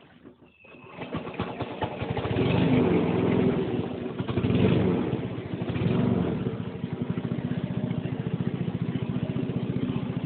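Small boat engine starting up about a second in, revving loudly, then settling into a steady, evenly pulsing run.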